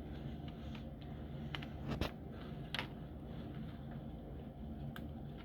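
Steady low indoor hum, with a few faint sharp clicks about two seconds and nearly three seconds in.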